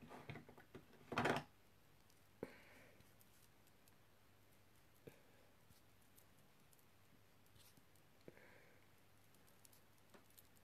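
Near silence with a short rustle about a second in, then a few faint clicks and soft scrapes of makeup tools and a blush container being handled.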